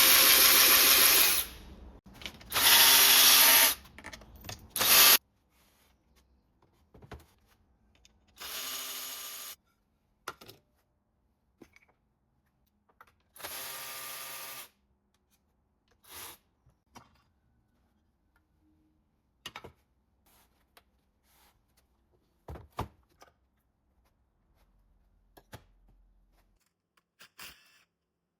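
Handheld power tool, like a drill or driver, run in short bursts: three loud ones in the first five seconds, then two quieter runs. Between and after them come scattered light clicks and taps of metal parts.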